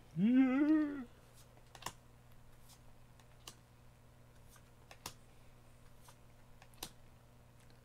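Trading cards being flipped through by hand: faint sharp clicks and snaps as each card is slid off the stack, at uneven intervals about every second. Near the start, a short wordless voice sound that rises in pitch.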